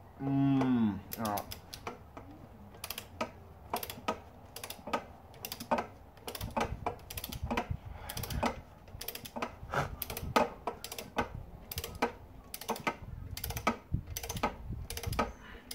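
Ratcheting torque wrench clicking in quick, irregular runs as it is worked back and forth on a cylinder head bolt.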